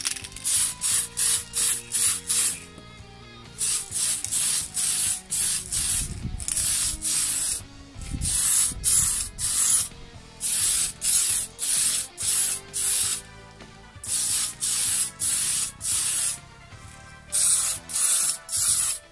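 Aerosol spray paint can hissing in quick short bursts, about three a second, in runs of several with brief pauses between, while a coat of paint goes on.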